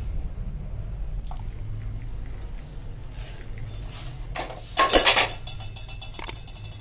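A cooking pan and utensils clinking and clattering as the brewed kadha is poured from the pan into a cup, with the loudest clatter about two-thirds of the way in and light clicks after it.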